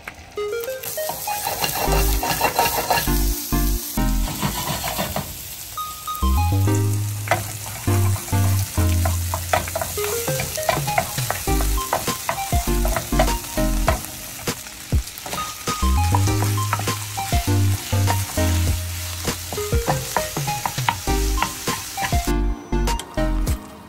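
Food sizzling as it fries in a nonstick frying pan, first an egg in butter and then diced onion and meat, with a wooden spatula scraping and stirring through it. Background music with a repeating bass line plays under it.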